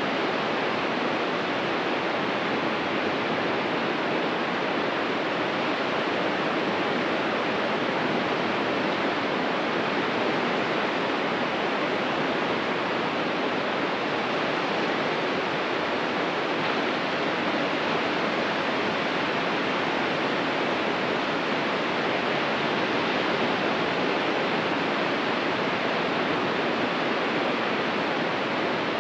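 Ocean surf washing on a beach: a steady, even rush of water with no single wave standing out.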